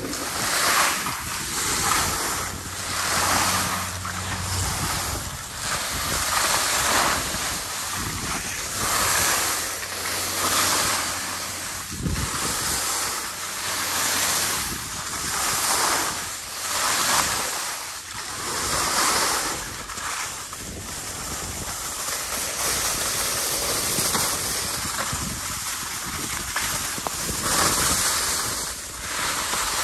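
Skis turning down a snow slope: a rhythmic swoosh of the edges scraping the snow that swells with each turn every second or two, mixed with wind rushing over the microphone.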